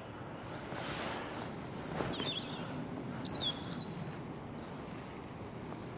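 Steady rushing of a fast, flooded river in spate, with a few short high bird song phrases about two to four seconds in.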